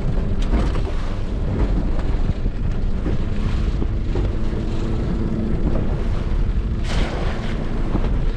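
Small boat's outboard motor running steadily under heavy wind rumble on the microphone, with a few light knocks and a brief noisy burst about seven seconds in.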